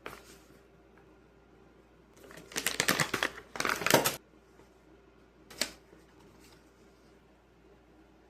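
Hands handling small hard objects: about two seconds of rapid clicking and clattering, then a single sharp click.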